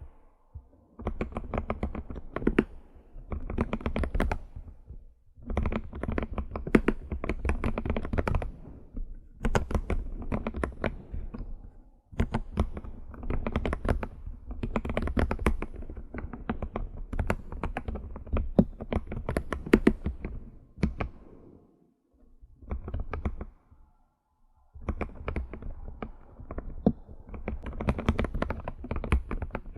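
Computer keyboard being typed on in quick runs of key clicks, each run lasting a few seconds, with short pauses between them.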